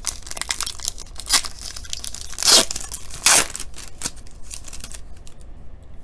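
Foil trading-card pack wrapper being torn open and peeled back, crinkling throughout, with two louder rips about two and a half and three and a half seconds in; the crinkling dies down about five seconds in.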